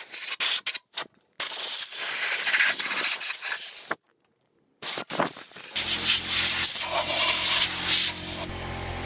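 Compressed air hissing from a shop air-hose nozzle as it blows dust out of a 3D printer. It starts with a few short blasts, then goes on in longer bursts of two to three seconds with a pause of about a second between them. A steady low hum joins in about halfway through.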